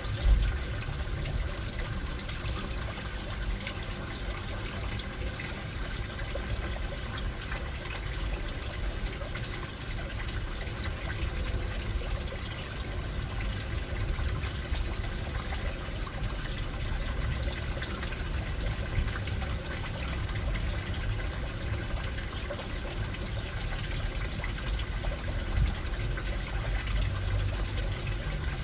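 Steady trickling of water in an aquarium, with a low rumble underneath; a brief knock just after the start.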